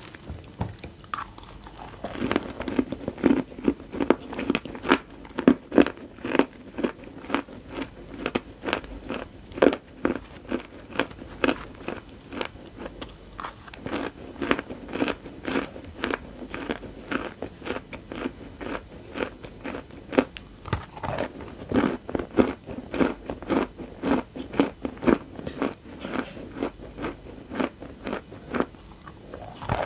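Close-miked crunching of dry chalk being chewed: crumbs and lumps of chalk bitten and ground between the teeth, a few sharp crunches a second, starting about two seconds in.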